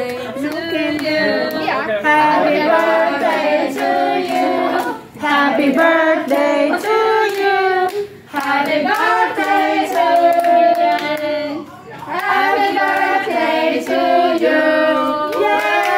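A small group of women singing a song together, with rhythmic hand clapping in time.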